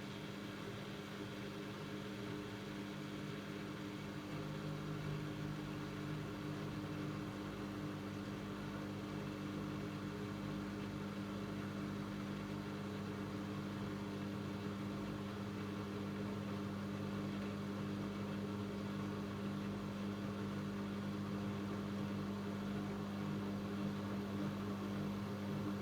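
AEG LS60840L washing machine running, a steady motor hum with a constant low drone that grows slightly louder in the first few seconds.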